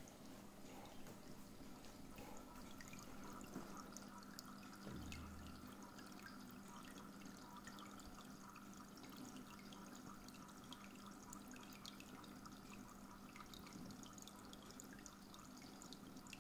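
Water trickling and dripping from an aquarium's overhead filter tray as thin streams fall through its holes into the tank. The sound is faint, with a steady low hum underneath and a soft low bump about five seconds in.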